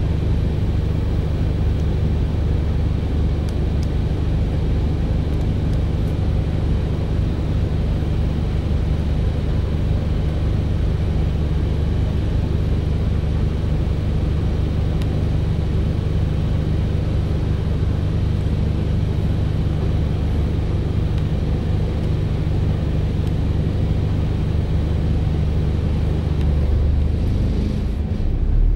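Volvo B5LH hybrid double-decker bus's diesel engine idling steadily while the bus stands still, heard from inside the upper deck as a low, even hum. Near the end it grows a little louder as the bus begins to pull away.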